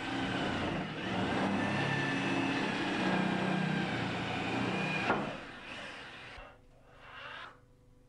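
Electric drill boring a hole through a wooden door, running steadily for about five seconds, then spinning down and stopping.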